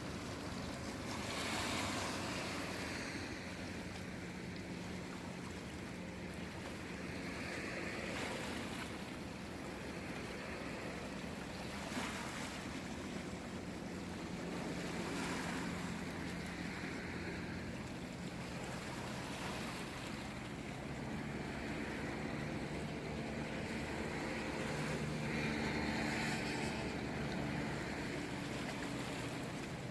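Small sea waves washing in, the water noise swelling and easing every few seconds, over a steady low hum.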